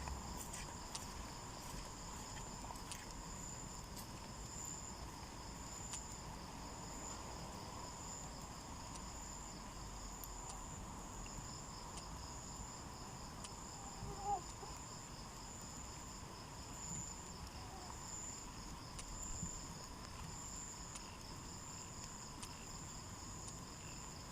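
Chorus of night insects such as crickets trilling steadily in two high-pitched tones, one pulsing rapidly. There is a short, slightly louder chirp-like sound about 14 seconds in.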